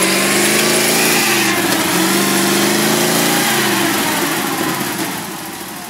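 A ZIL-131 truck's V8 petrol engine revving hard under load while the truck is stuck in mud. It rises in pitch twice, then eases off and dies down near the end.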